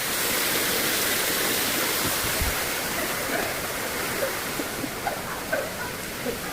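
Steady rushing of falling water, an even hiss that never lets up, with a few faint short high notes over it in the second half.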